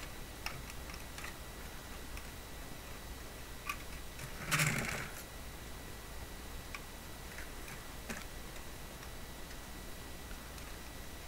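Scattered small plastic clicks and taps as an action figure is worked into the seat of a 1:18 diecast Ford Bronco model, with one louder brief scrape about four and a half seconds in.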